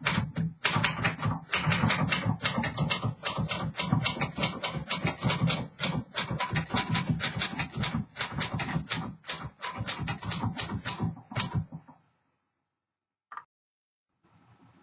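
1932 Smith Corona Sterling manual typewriter being typed on, a quick run of sharp keystrikes, several a second, that stops about twelve seconds in; one more single click follows a little later.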